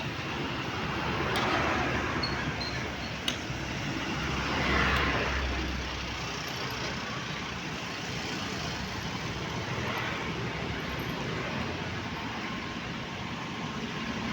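Vibratory roller compactor running over soil, a steady machine noise that swells twice, about a second and a half in and again around five seconds in, with a few sharp clicks.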